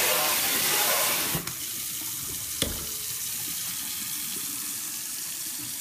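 Water from a pull-out kitchen faucet hissing into a stainless steel sink, dropping about a second and a half in from a loud spray to a quieter steady stream. A single sharp click about a second later.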